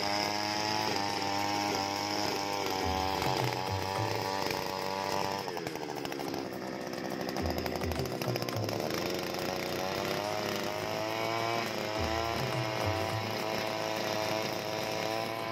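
Small 72 cc two-stroke air-cooled earth auger engine running at high revs. Its pitch drops about five seconds in as the throttle is eased off, then climbs back as the throttle is opened again.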